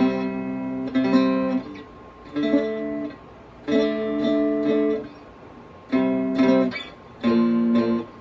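Handmade cigar box guitar being strummed in short trial bursts: six separate chords, each ringing about a second with a brief pause between, some struck several times in a row.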